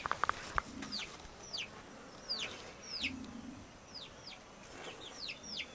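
Chickens: a run of short, high, falling peeps repeated about every half second, with a couple of low clucks. A quick cluster of sharp clicks comes right at the start.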